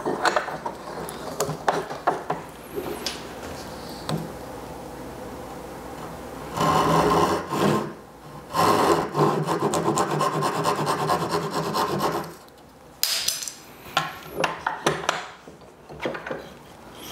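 Japanese pull saw cutting by hand through a wooden handle blank, a fast run of rasping strokes from about six seconds in to about twelve, with a short break near the middle, to form a tenon. Scattered knocks and light scraping of the work being marked and handled come before and after.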